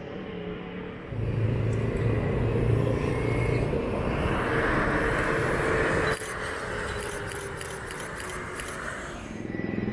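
Small motor scooters running past on the road, engines and tyres, with the broad rush of a Bombardier CRJ-1000 regional jet passing low on its landing approach. The noise drops off abruptly about six seconds in.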